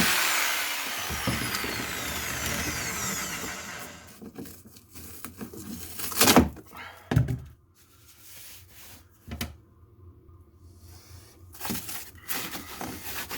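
A power tool winding down, its whine falling in pitch as it fades over a few seconds. This is followed by scattered knocks and scraping on the boat's hull, loudest twice around the middle.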